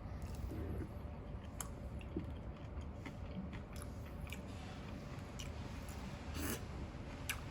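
A person chewing food, with a few short sharp clicks scattered through it over a steady low background hum.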